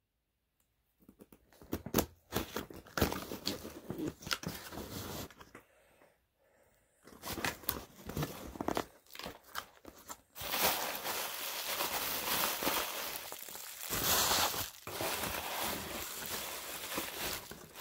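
Cardboard shipping box being opened by hand: scattered tearing and scraping of flaps and tape, with short pauses. About ten seconds in, plastic bubble wrap is pulled out and crinkles continuously.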